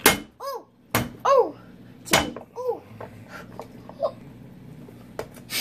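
Cleaver chopping through a lobster claw on a wooden cutting board: four sharp chops, the first the loudest, with a child's short high voice sounds between them.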